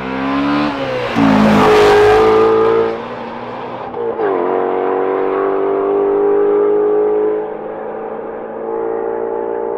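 A manual sports car accelerating hard from a standstill, the engine revving up and dropping as it shifts gear about a second in and again about four seconds in. A loud rushing noise rides over the engine in the first few seconds of the launch. The sound fades as the car pulls away.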